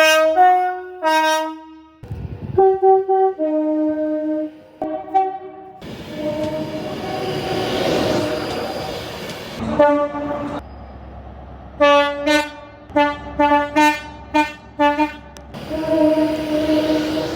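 Train horns sounding in a run of blasts cut together one after another. Some blasts are long, some are short toots sounded in quick succession, and several sound two or more notes at once. Around the middle a passing train's rumble lies under the horn.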